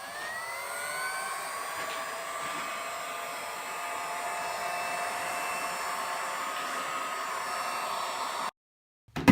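Electric heat gun running, its fan whine still rising to speed over the first second, then blowing steadily. It stops abruptly near the end.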